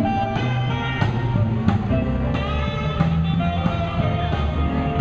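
Music with guitar and drums playing over a steady beat, the soundtrack of a water fountain show.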